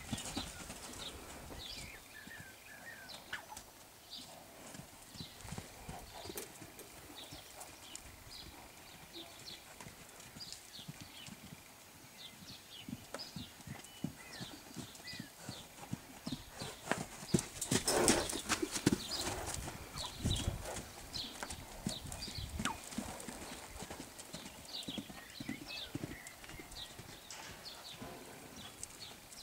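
Hoofbeats of a young Trakehner horse moving loose on a sand arena: a running series of dull hoof falls on soft footing. A louder burst of noise comes a little over halfway through.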